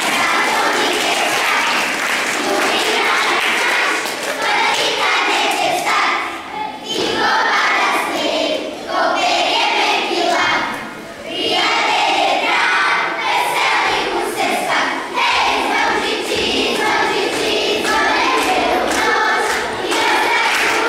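Children's choir singing together, in phrases with short breaths between them.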